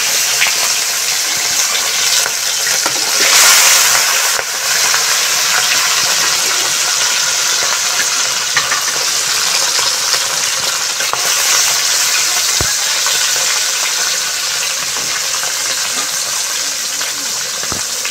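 Whole round scad (galunggong) frying in hot oil in a wok: a steady sizzle that swells loudest about three to four seconds in.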